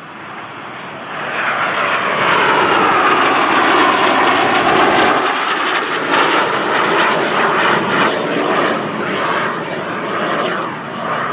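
Aermacchi MB-339 jet trainer's single turbojet flying past overhead during aerobatics: the engine noise swells about a second in and stays loud for several seconds, easing slightly near the end.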